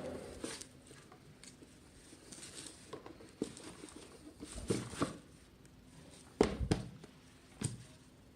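Handling noise from a pair of in-ear earphones being picked up and turned over: a scatter of small clicks and knocks with light rustling, the loudest cluster about six and a half seconds in.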